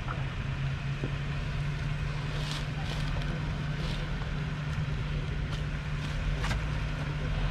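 Off-road vehicle engine running steadily at low speed, a low even drone, with a few sharp clicks or knocks scattered through it.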